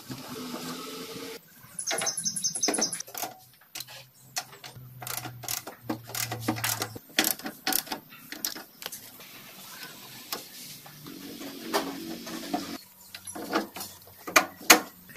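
Hand tools on the rear suspension and brake-drum hub of a home-made buggy: a socket ratchet wrench clicking and sharp metal clinks and knocks of tools and bolts at irregular intervals, with a quick run of repeated clicks about two seconds in.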